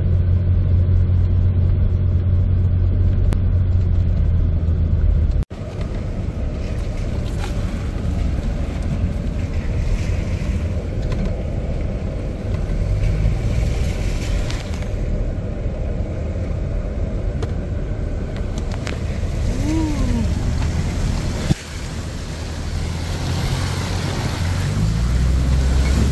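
Four-wheel-drive vehicle driving: a steady engine drone with tyre and road rumble. The sound cuts off abruptly twice, about five seconds in and near the end, as clips change.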